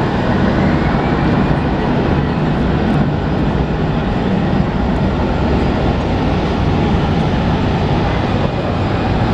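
Airbus A319 jet engines at takeoff thrust: a loud, steady rush of engine noise, with a faint rising whine near the start.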